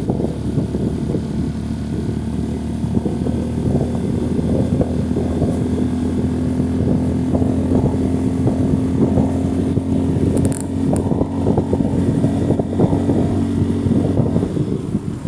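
Motorcycle engine running at a steady cruising speed with an even engine note, under wind buffeting the microphone.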